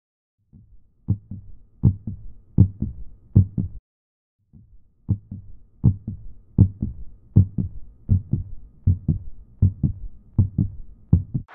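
Heartbeat: a steady double thump, lub-dub, about 80 beats a minute. It breaks off for under a second about four seconds in, then resumes.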